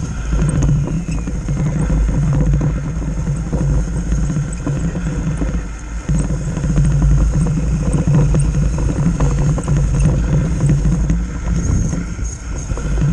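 Radio-controlled model vehicle's electric motor and gearbox running with a steady low drone, with rattling from the rock-loaded bin as it drives over the snowy road. The drone dips briefly about six seconds in and again near the end.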